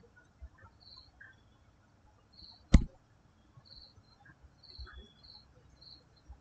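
Faint, short, high-pitched chirps repeating irregularly in the background, with one sharp click a little under three seconds in.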